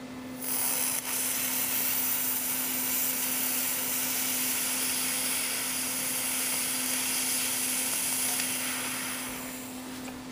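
ZVS-driven TV flyback transformer failing under power: a loud, steady hiss starts about half a second in, with a sharp crack a moment later, as the transformer burns and vents smoke. The hiss fades away near the end, with a faint low hum underneath throughout.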